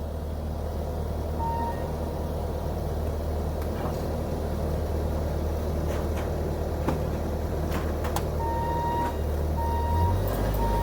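Bobcat T650 compact track loader's diesel engine running steadily, with its reversing alarm beeping: one beep about a second and a half in, then a run of beeps from about eight seconds in. A few sharp metallic clanks are heard in between.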